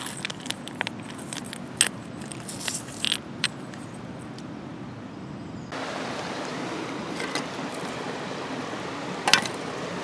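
Pebbles and stones clinking and knocking together as a hand turns them over on a stony riverbank, a quick scatter of sharp clicks. A little past halfway this gives way suddenly to a steady rush of wind and running river water, with one more sharp knock near the end.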